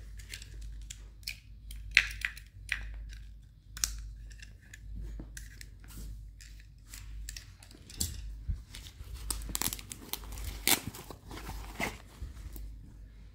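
Handling noises from fishing gear: sharp plastic clicks as a fish lip grip's jaws are opened and closed, then rustling, rasping and scraping as a fabric tackle bag is opened and a pair of fish pliers is taken out.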